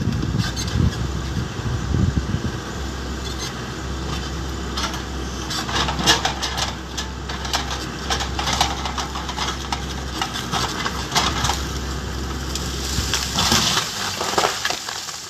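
A motor running with a steady low hum, with many sharp cracks and crunches over it, like wood breaking or being crushed. The hum stops shortly before the end.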